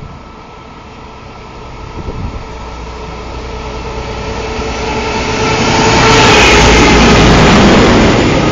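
Freight train approaching and passing close by: the locomotive's running noise, with a steady hum, grows louder and peaks about six seconds in as it goes by, then the goods wagons roll past.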